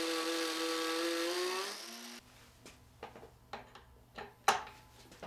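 Angle grinder with a carbide cutter carving spiral grooves into a wooden bowl blank: a steady high whine that rises slightly in pitch and cuts off about two seconds in. After it come several light clicks and knocks over a faint hum.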